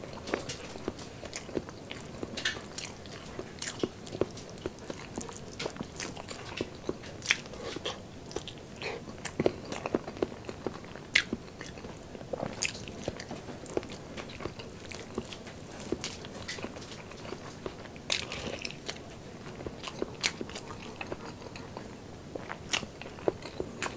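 Close-miked chewing of cola-braised pork knuckle, with frequent irregular wet smacks and sharp clicks of the mouth.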